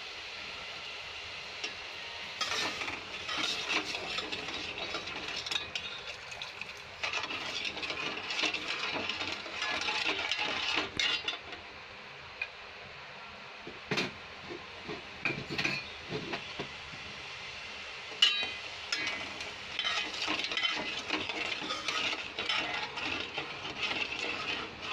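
A steel spoon stirring sugar syrup in a metal pot, scraping and clinking against the sides and bottom over a steady hiss. There is a short lull in the middle, then a few sharper clinks.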